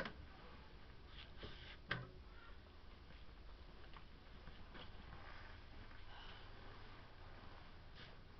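Quiet room tone with a faint low hum, broken by two short clicks: one at the very start and one about two seconds in.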